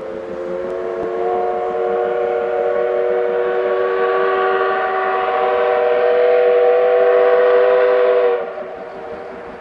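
Steam whistle of the C11-class tank locomotive C11 325, blown in one long blast of about eight seconds that holds several pitches at once. It grows louder as it goes and cuts off sharply.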